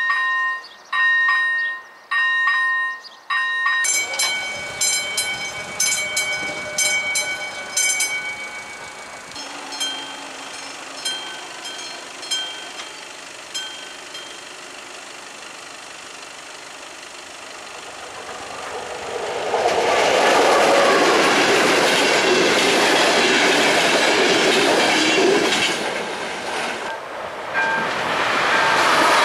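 Level crossing warning bells ringing in repeated chiming tones, with the pattern of the ring changing twice in the first ten seconds. About twenty seconds in, a train passes with a loud, steady rush and the clatter of its wheels on the rails.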